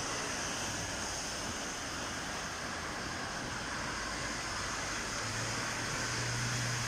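Steady hiss of garage background noise under a car on a lift, with a low hum joining about five seconds in.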